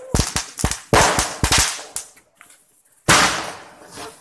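Aerial fireworks going off: a quick series of sharp bangs and pops over the first second and a half, a short lull, then one loud bang about three seconds in.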